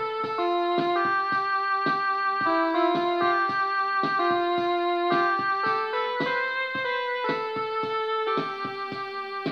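Electronic keyboard playing a melody of held notes over a steady beat.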